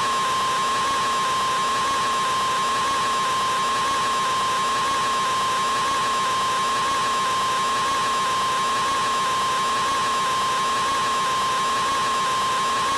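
A man's open-mouthed scream stretched into one unbroken 'aaaa' that holds a single steady high note, with a hiss behind it and no change in pitch or loudness.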